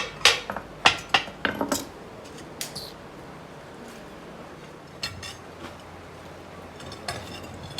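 Hard metal objects clinking and knocking together: a quick run of sharp strikes in the first two seconds, then a few scattered ones.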